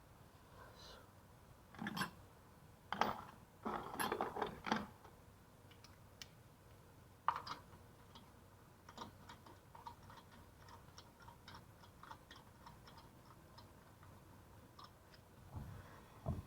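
Light metallic clinks and knocks of hand tools and parts during work on a car's brakes: a cluster of sharp knocks a couple of seconds in, then a run of faint quick ticks.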